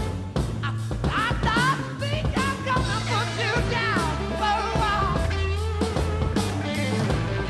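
Rock music with electric guitar over a steady beat, its lead line bending up and down in pitch through the middle.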